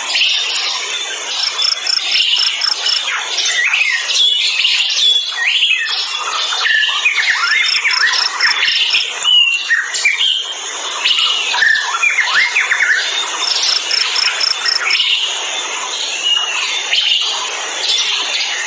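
Dense chorus of many wild forest birds chirping and calling over one another. A short, fast run of evenly spaced high pips cuts through three times, about six seconds apart.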